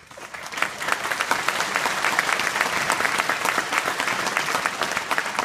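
Audience applauding: many people clapping, quickly swelling to a steady patter just after the start.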